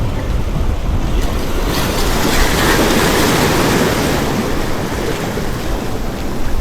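A sea wave surges in and washes against the shore, swelling about two seconds in and dying away a few seconds later. Wind rumbles on the microphone throughout.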